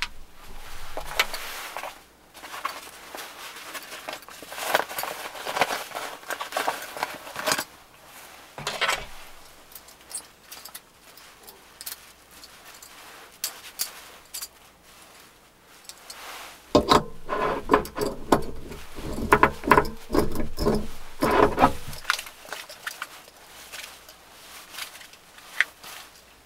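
Compact folding camping gas stove being handled: light metal clicks and clinks as its pot-support arms are unfolded, with rustling of its cloth pouch. There is a louder, denser cluster of handling noises about two thirds of the way through.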